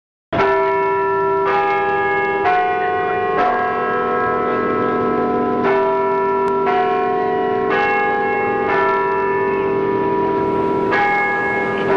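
Church bells ringing: a bell is struck roughly once a second, the pitch changing from strike to strike, and each note rings on under the next.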